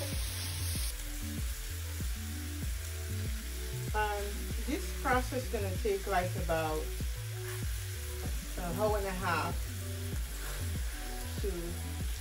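Oxtail sizzling as it browns in an enameled cast-iron pan, with a utensil stirring and scraping through seasoned vegetables in a stainless steel bowl every few seconds.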